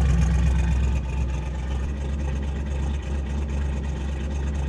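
Freshly started 355 cubic-inch small-block Chevy V8 (a 350 bored 30 over) with a 270H Magnum cam and Edelbrock carburetor, idling steadily and a little high because it has only just started.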